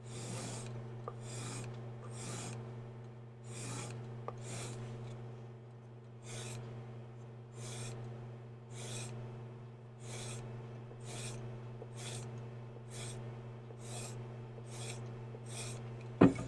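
Knife blade drawn again and again across a strop, about one short hissing stroke a second, taking the last of the burr off a freshly sharpened serrated edge. A sharp knock near the end, over a steady low hum.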